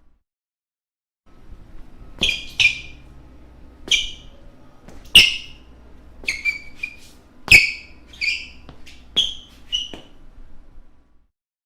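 Basketball shoes squeaking on a floor: about eleven short, sharp rubber-sole squeaks at irregular intervals over a faint background hum. The sound starts after about a second of dead silence and cuts out again shortly before the end.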